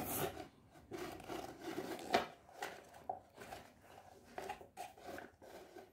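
Hard plastic toy parts knocking and rubbing as a round plastic tabletop is fitted and turned on its plastic stand: a string of light clicks and scrapes, with one louder knock about two seconds in.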